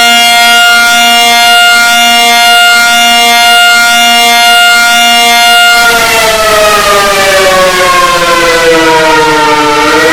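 Emergency alert siren, very loud: a steady tone for about six seconds, then a slow wail that falls in pitch for about four seconds and begins to rise again near the end.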